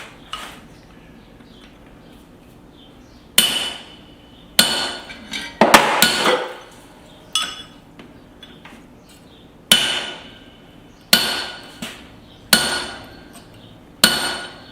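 Hand hammer striking a punch to drive the eye through a hot steel hammer head: about ten blows, each with a short metallic ring, beginning a few seconds in and coming every second or so.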